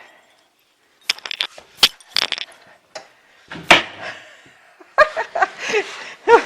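Clattering clicks and knocks from handling a large wooden shipping crate and its heavy contents, with a heavier knock about halfway through.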